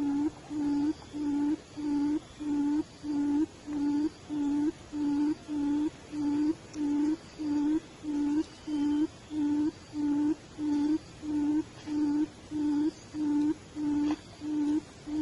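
A bird's low hooting call: one short note repeated evenly, about three notes every two seconds.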